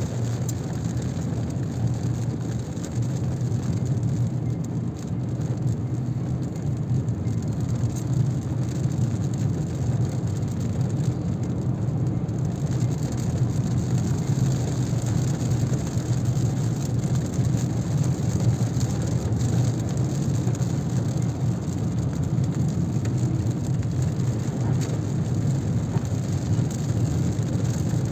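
Mazda 3 driving in heavy rain, heard from inside the cabin: a steady low rumble of the car on the road, with rain hitting the car's body.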